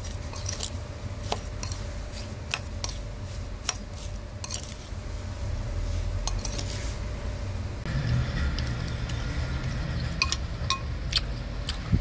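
Metal spoon clinking and scraping against a ceramic bowl as sliced green mango is tossed with seasoning, in irregular clicks over a steady low rumble that grows louder about two-thirds of the way in.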